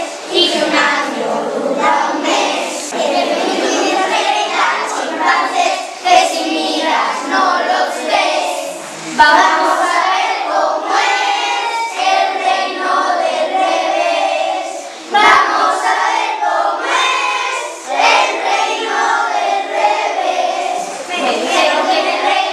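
A group of children singing together, with a couple of brief knocks partway through.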